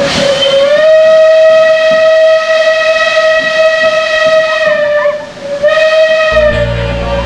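Steam locomotive whistle: a long steady blast of about five seconds, a brief break, then a second blast. A low rumble comes in near the end.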